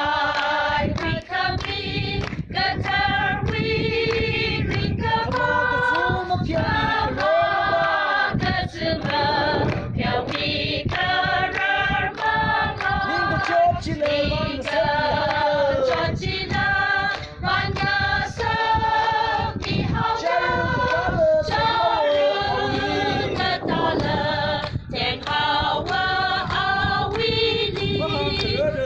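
Mixed choir of women and men singing a song unaccompanied, women's voices to the fore, with the singers clapping their hands along.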